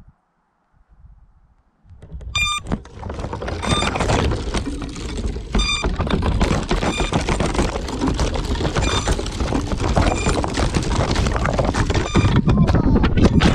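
Footsteps crunching and rustling through dry leaves and brush, starting about two seconds in. Over them, a short high electronic beep repeats about once a second, typical of a crashed FPV drone's lost-model buzzer sounding so it can be found.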